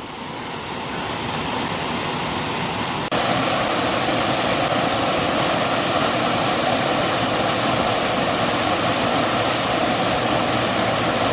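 Small waterfall, water pouring and rushing steadily; the sound steps up suddenly and grows louder about three seconds in.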